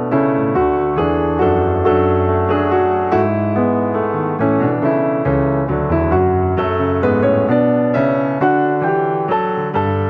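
Background music played on piano, with a steady run of notes and chords struck about twice a second.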